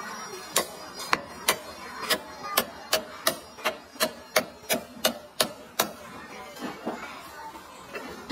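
A knife or cleaver chopping meat on a cutting board: a quick, even run of about fourteen sharp knocks, roughly three a second, which stops about six seconds in.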